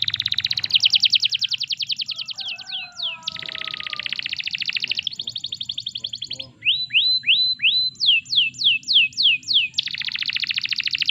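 Domestic canary singing: long, rapid trills of repeated high notes. Midway these give way to a string of slower, separate sweeping notes, first rising, then falling, before a fast trill starts again near the end.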